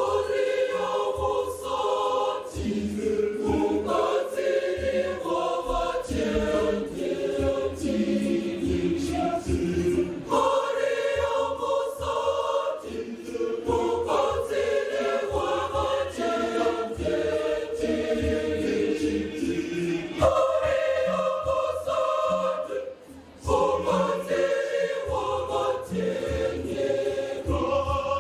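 Catholic church choir singing a hymn, phrase after phrase, with one short break in the singing near the end.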